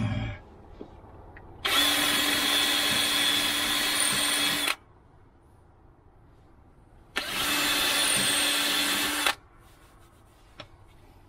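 Cordless drill boring screw holes through a plywood drawer front: two steady runs, the first about three seconds and the second about two, each with the motor holding one even pitch, and a pause between them.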